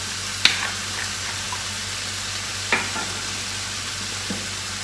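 Cabbage and green beans stir-frying in a hot pan, sizzling steadily, with two sharp clicks about half a second in and near three seconds.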